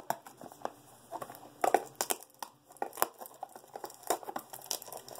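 Blind-box toy packaging being handled: an irregular run of crinkles and crackles.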